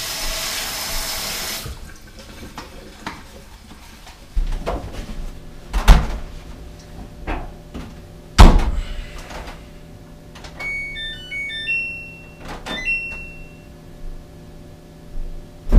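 A kitchen faucet runs briefly over a dish sponge. Then come a few heavy thumps at a front-loading laundry machine, and a string of short electronic beeps at several pitches from its control panel as its buttons are pressed.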